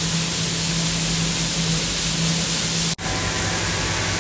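Plastic flake colour sorting machine running: a steady, loud rushing noise with a low hum under it. The sound cuts out for an instant about three seconds in.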